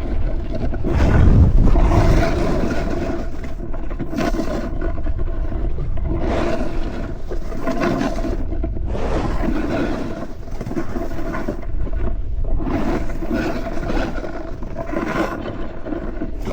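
Snowboard sliding and carving over packed snow: a continuous scraping rush that swells and eases with each turn, loudest about a second in, mixed with wind on the microphone.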